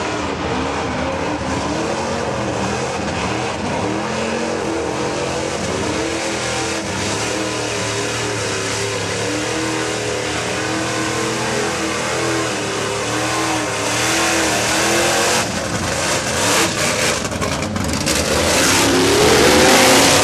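1941 Chevy mega mud truck's engine revving hard as it churns through a mud bog, the pitch swinging up and down with the throttle, then climbing and getting louder near the end.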